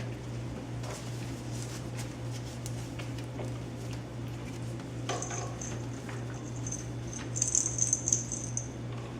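Young puppies playing: light pattering and small knocks over a steady low hum, then from about halfway in, broken bursts of high-pitched squeaking.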